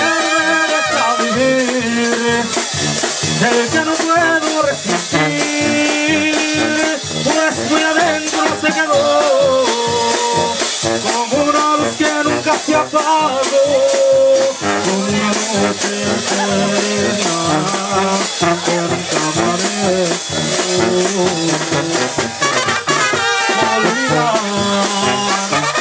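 Live tamborazo banda playing: a trumpet and trombone melody over sousaphone bass and a steady bass-drum and cymbal beat.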